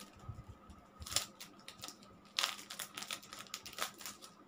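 Clear plastic packaging sleeve crinkling as it is handled and peeled open off a sheet of stickers: a short rustle about a second in, then a longer run of crackling from about halfway.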